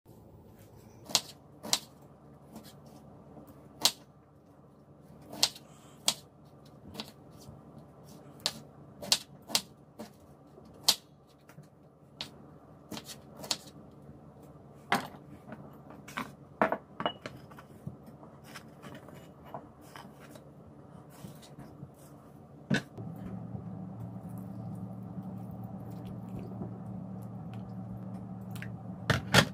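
Kitchen knife chopping broccoli on a wooden cutting board: irregular sharp knocks, one or two a second. About 23 seconds in, water starts pouring steadily into a bowl of broccoli florets.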